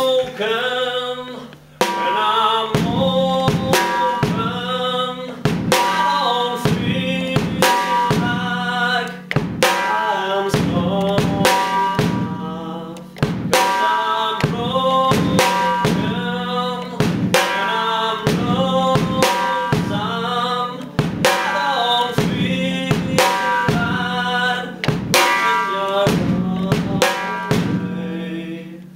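A band playing loud and close from the drummer's seat: the drum kit is in front, with steady bass drum, snare and cymbal hits, and pitched instruments sound over it.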